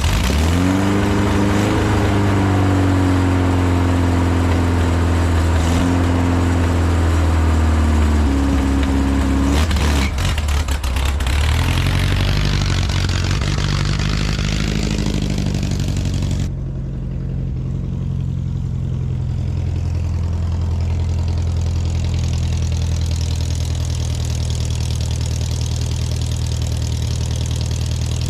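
1969 VW Squareback's air-cooled flat-four engine running on its freshly cleaned and reassembled Weber carburetor: it revs up at the start, runs steadily, dips and picks up speed again around the middle, then the sound turns suddenly duller about two-thirds of the way through and runs on steadily.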